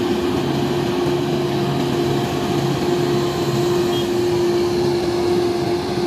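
Engine of a large multi-axle all-terrain mobile crane running steadily as the crane drives along a road, a constant drone with no change in pitch.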